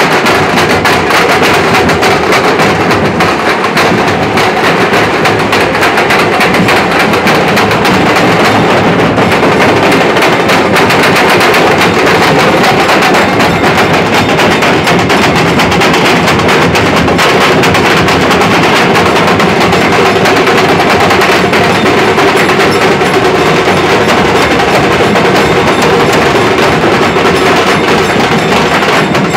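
Nashik dhol troupe drumming: many large barrel drums beaten together in a fast, dense, unbroken rhythm, very loud throughout.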